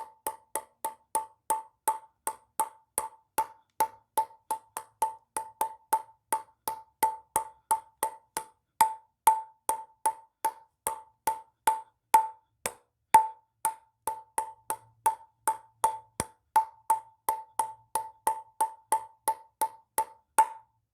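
Ping-pong ball bouncing over and over in a steady rhythm of sharp, hollow clicks, about three a second, spaced a little wider in the middle stretch.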